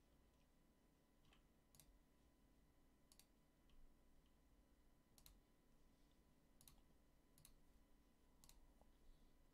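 Near silence with about eight faint, sharp clicks at irregular intervals, like someone working a computer keyboard and mouse.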